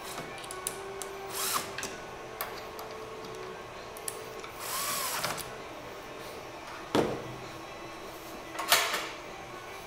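Cordless drill-driver driving screws into a metal hinge bracket in two short bursts, each a brief whir that speeds up and slows down. A sharp knock about seven seconds in and a louder scraping rush near the end as the shelf panel is picked up.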